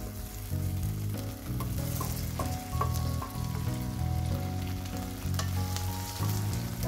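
Chopped onions and tomatoes sizzling in butter in a steel kadhai over a high flame, stirred with a wooden spatula that clicks and scrapes against the pan. Low background music plays underneath.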